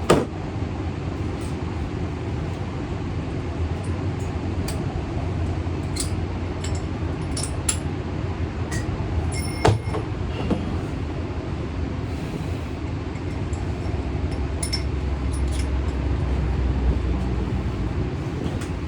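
Hand work on metal inside a stripped school bus: scattered knocks and clicks, with one ringing metal clink about halfway through, over a steady low rumble.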